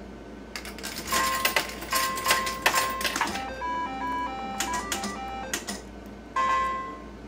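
IGT S+ slot machine being played: clicking as the reels spin, with electronic beeps and a short tune of beeps at changing pitch in the middle, and another long beep near the end.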